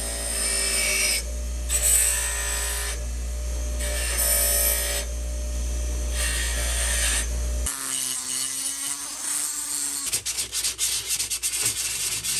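A power tool runs steadily while it is worked over a chainsaw crankcase in repeated abrasive passes, about one every second or two. It stops about eight seconds in, and irregular scratchy sanding strokes follow.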